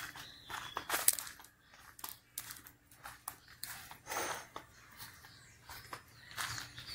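Scattered crunching and rustling noises at an uneven pace, with a sharp crackle about a second in.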